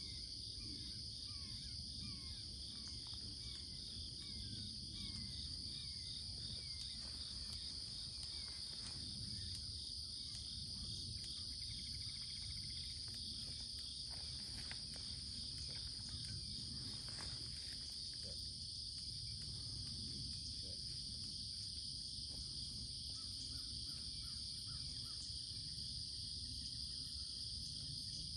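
Steady chorus of insects such as crickets, a constant high-pitched trill with an even pulsing beneath it, with short falling bird chirps repeated during the first few seconds and a low rumble underneath.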